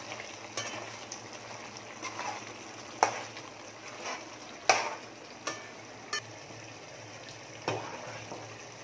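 Chicken cooking in oil and gravy in a metal pot with a steady sizzle while a metal spoon stirs it, giving several sharp clinks of spoon on pot.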